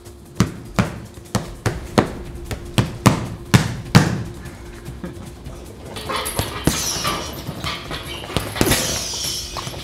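Boxing gloves punching a heavy leather bag: a run of sharp thuds, about two to three a second for the first four seconds, then the bag's hanging chains jangling and clinking from about six seconds in.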